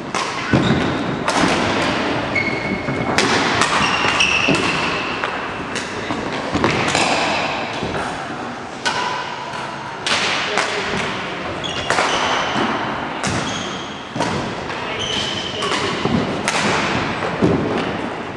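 Indoor sports play: repeated sharp hits and thuds, roughly one every second or two, each echoing, with short high squeaks in between.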